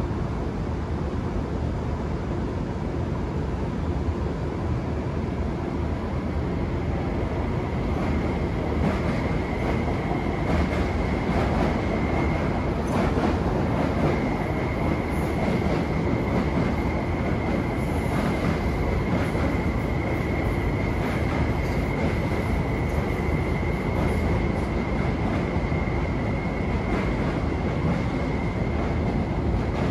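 MTR West Rail Line electric trains running over the tracks and points, with a steady high whine and a run of wheel clicks over the rail joints and points from about eight seconds in.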